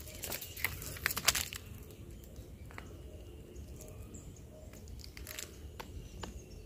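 Dry leaves and twigs crunching and crackling, with a cluster of sharp snaps in the first second and a half, then only a few scattered faint clicks.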